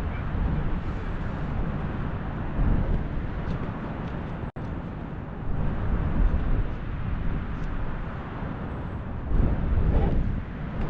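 Strong wind buffeting the microphone in gusts, a low rumbling rush that rises and falls. The sound drops out for an instant about four and a half seconds in.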